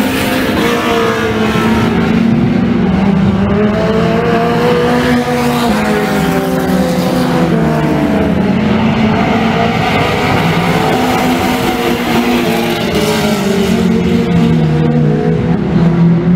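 Race car engines on a dirt oval, loud and overlapping, their pitch rising and falling repeatedly as the cars accelerate and slow around the track.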